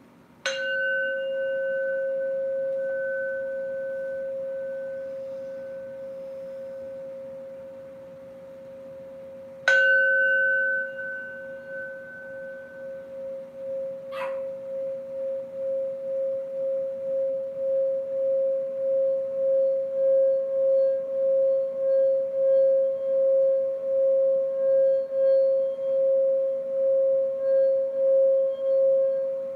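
Metal singing bowl struck twice with a mallet about ten seconds apart, each strike ringing out in a long humming tone. After the second strike the mallet is circled around the rim, drawing out a sustained tone that pulses and slowly swells louder.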